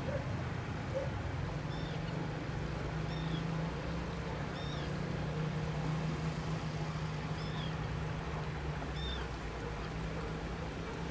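A small bird giving short, high, slightly arched calls, about five of them a second or two apart, over a steady low hum.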